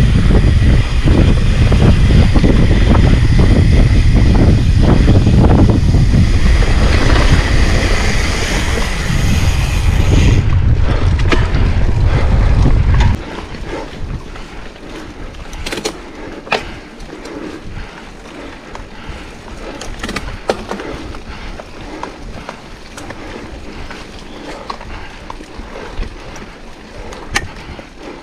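Mountain bike riding heard on the camera's own microphone: loud wind buffeting and rumbling rattle, then a sudden drop about halfway through to quieter rolling noise with scattered sharp clicks and knocks.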